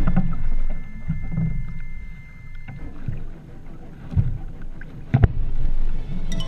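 Sea water lapping and slapping against a plastic sit-on-top kayak hull in uneven pulses, with a sharp knock on the hull about five seconds in.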